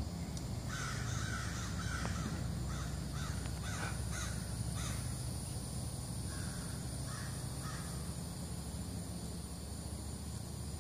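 Crows cawing repeatedly: alarm calls raised at a black bear up in a tree. There is a quick run of caws in the first half, then a few more about six to eight seconds in.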